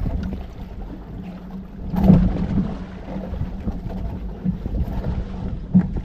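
Wind buffeting the microphone aboard a small fishing boat at sea, over a steady low hum. A dull knock about two seconds in is the loudest moment, and there is a smaller one near the end.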